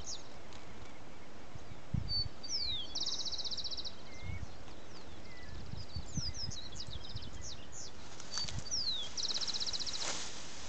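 Corbatita seedeater singing: phrases of quick, high down-slurred notes, each ending in a fast buzzy trill, twice. Scattered low thumps of wind or handling on the microphone.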